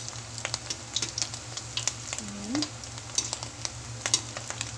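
Alamang (tiny shrimp) patties frying in hot oil in an aluminium wok, crackling and popping irregularly, while a utensil stirs and pushes them around the pan. A steady low hum runs underneath.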